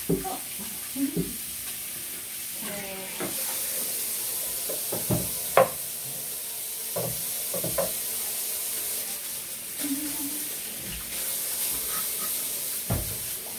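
Kitchen tap running steadily into a stainless steel sink while dishes are washed by hand. There is scrubbing and scattered knocks and clatters of a wooden chopping board and dishes against the sink, the sharpest about five and a half seconds in.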